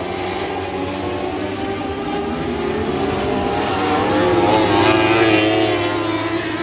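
Several winged Lightning Sprint cars racing on a dirt oval, their engines revving up and down through the turn. The sound grows loudest about four to five seconds in as cars pass close by, then eases.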